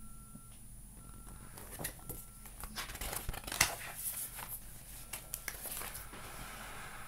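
Picture book being handled and its page turned: soft paper rustles and small scattered clicks.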